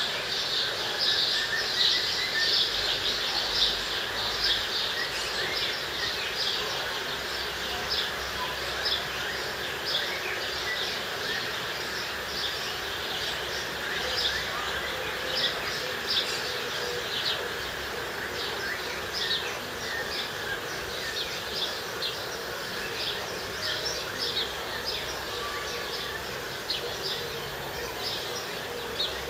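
Short, high chirps repeating irregularly, several a second, over a steady outdoor background hiss.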